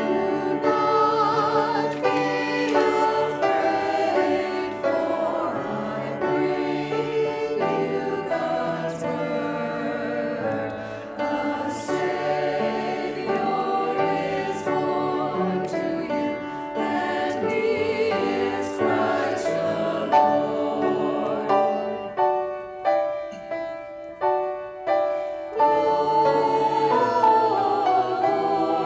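Small mixed choir of men's and women's voices singing an anthem in parts, accompanied by an upright piano. About two-thirds of the way in, the music breaks into a run of short, separated chords before the full sound returns.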